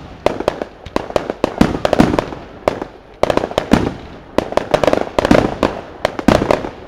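Aerial fireworks shells bursting in a rapid, irregular volley, several sharp bangs a second.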